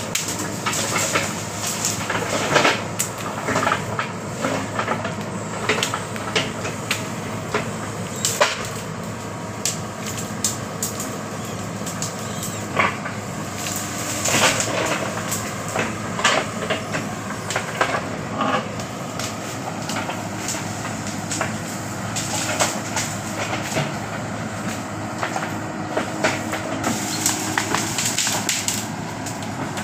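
Backhoe loader's diesel engine running steadily while it clears brush, with frequent sharp cracks and knocks from branches breaking and the backhoe working.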